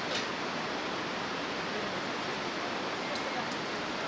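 Steady, unbroken rush of fast river water from the Bhote Koshi.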